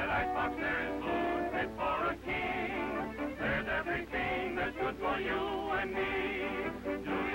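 Background music from an early-1930s cartoon score, with quick short notes and wavering high notes throughout.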